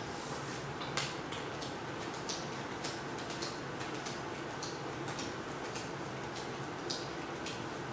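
Playing cards being handled and laid down on a wooden table: irregular light clicks and ticks, about two a second, over a steady faint hiss.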